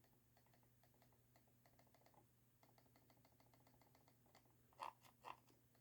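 Faint clicking from a modded gaming mouse's scroll wheel: a run of quick soft ticks, then two slightly louder muted clicks near the end from the Kailh mute scroll-click switch.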